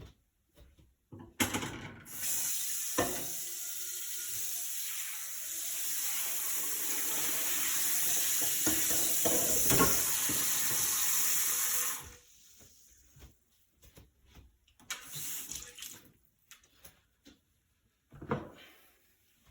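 Kitchen tap running into a sink for about ten seconds, with a few knocks in the water, then shut off suddenly; after that, scattered small clicks and knocks.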